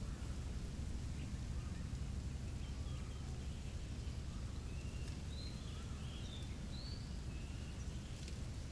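Small birds chirping in short, quick rising-and-falling notes, busiest a little past the middle, over a steady low rumble of outdoor ambience.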